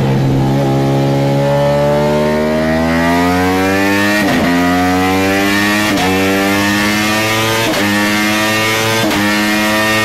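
Ducati Panigale V4 engine through an Arrow exhaust, pulling hard on a dyno. Its pitch climbs through each gear, with four quick upshifts, each a brief break where the pitch drops and then climbs again.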